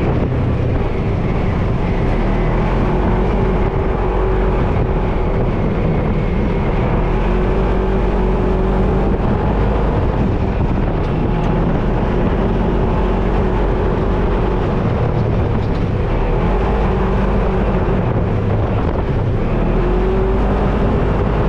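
Off-road vehicle engine running steadily, its pitch rising and falling slightly, with some wind noise.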